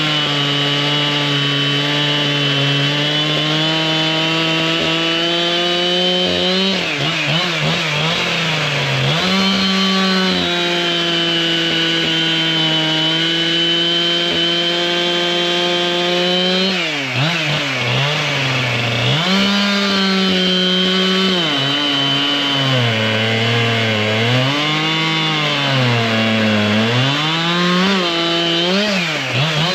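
Two-stroke chainsaw with a 32-inch bar and full-skip chain running at high revs. Its pitch sags several times and climbs back, wavering up and down through the later part.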